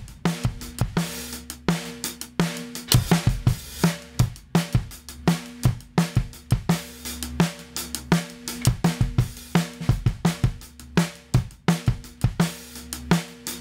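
Recorded drum kit playing a steady groove, with kick, snare, hi-hat and cymbal hits coming several times a second, played back as a sample of a FET compressor's sound on drums.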